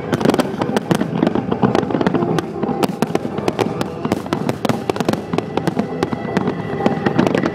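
Large fireworks display: shells bursting and crackling in dense, rapid succession, many reports a second with no pause.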